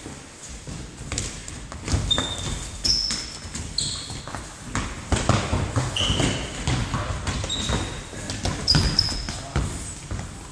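Indoor football on a wooden gym floor: a ball being kicked and bouncing, running footsteps, and trainers squeaking in short high chirps several times, all in a large hall.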